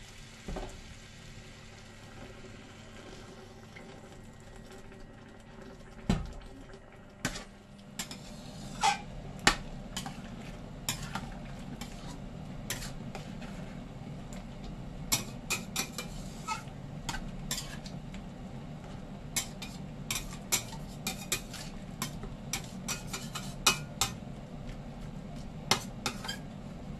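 Metal spatula stirring a wok of meat and sauce, clinking and scraping against the stainless steel pan with many irregular knocks. The stirring starts about six or seven seconds in, after a quieter stretch.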